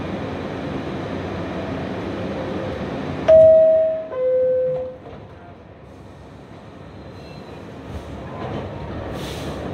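New York City subway car's door chime: two loud descending tones, a higher note then a lower one, over a steady rumble of train and station noise. A short burst of hiss comes near the end as the train begins to move.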